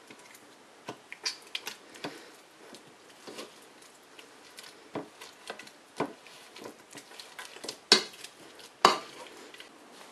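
Potato masher working steamed pumpkin into puree in a nonstick pot: irregular knocks and clatters as the masher head strikes the pan, with two louder knocks near the end.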